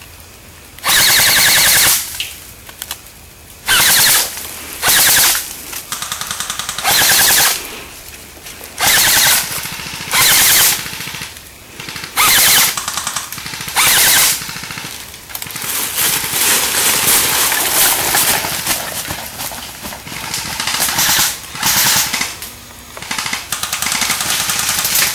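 Airsoft rifles firing full-auto bursts, each a rapid rattle of shots lasting about half a second to a second. The bursts come every second or two at first, then shorter bursts follow closely one after another in the second half.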